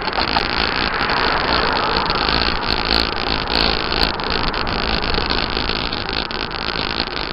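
Loud, steady rushing of wind over the microphone together with rolling noise over asphalt while moving quickly along a paved bike lane, with scattered small clicks and knocks.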